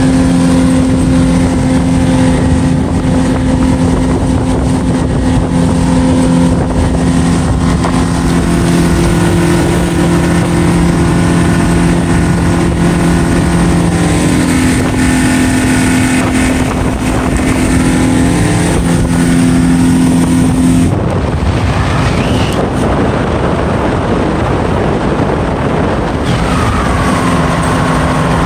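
Outboard motor of a small center-console boat running steadily while the boat cruises, under a haze of wind and water rush. About three-quarters through, the wind and water noise swamps the engine's tone for several seconds before it comes back.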